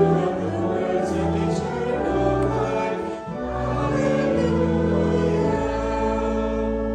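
Congregation singing a short acclamation before the Gospel reading, with instrumental accompaniment holding sustained chords.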